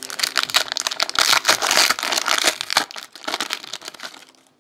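Trading-card pack wrapper being opened and crinkled in the hands: dense crackling for about three seconds that softens and dies away near the end.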